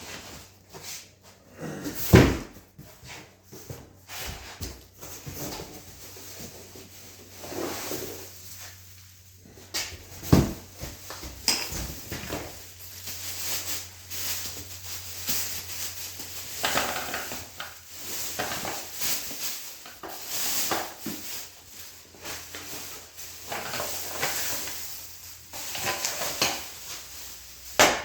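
Handling and unpacking noises: packaging rustling, with scattered knocks and clatters, the two loudest sharp knocks about two seconds in and about ten seconds in.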